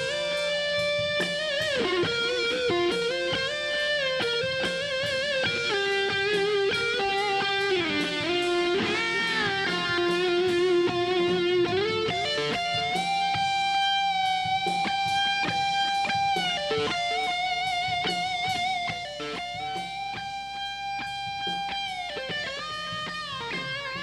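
Electric guitar playing a lead line of sustained, bent notes with wide vibrato, run through a 1176-style compressor emulation in the DAW.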